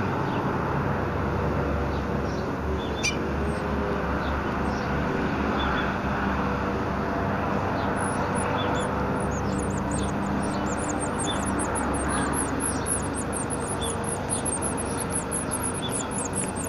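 Nestlings begging with very high, thin, rapid cheeping, many calls a second, starting about halfway through: the begging calls baby birds give as they are fed. Before that, only scattered single chirps, all over a steady rushing background noise.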